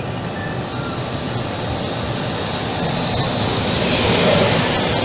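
Trenord TAF electric multiple unit pulling into an underground station platform, its running noise growing steadily louder as it nears.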